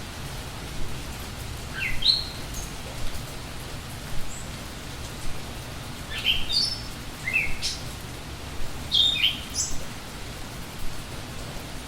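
Steady rain with a low rumble underneath, and a songbird giving short, quick rising chirps in a few clusters: about two seconds in, again from about six to eight seconds, and around nine seconds.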